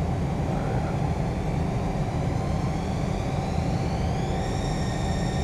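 Haas ST-10 CNC lathe running with its spindle turning, a steady low hum under a steady mid-pitched tone. About three seconds in, a high whine rises and levels off after about a second and a half as the spindle speeds up in constant surface speed mode.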